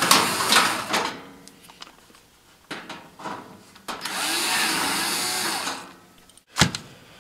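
Handheld electric screwdriver whirring for about two seconds as it backs a screw out of the heater's sheet-metal side, its pitch wavering under load. Handling knocks come before it, and a sharp click near the end.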